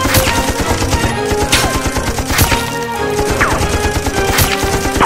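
Fast-paced action background music with a driving beat, with gunshot and impact sound effects mixed over it as a few sharp strikes.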